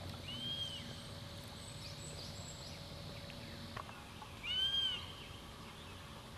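A bird calling twice. Each call is a short high note that rises and falls, and the second, about four seconds later, is louder. Faint chirps of other birds sound in the background.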